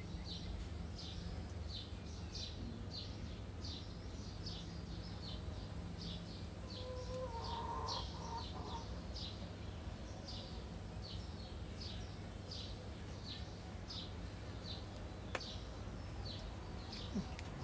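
A small bird repeating a short, high chirp at a steady pace of nearly two a second, over a steady low hum.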